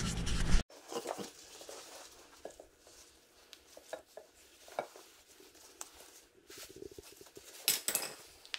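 Faint rustling and light metallic clicks of heat-wrap tape being wound by hand around a metal turbo pipe, with a louder clatter near the end.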